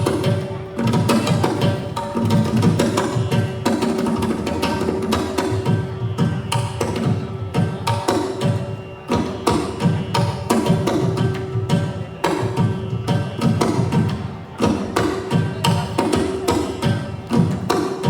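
Music with fast hand-drum percussion over a steady held drone tone.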